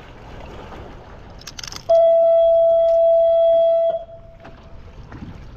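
A horn sounds one steady, loud blast lasting about two seconds, over wind and water noise.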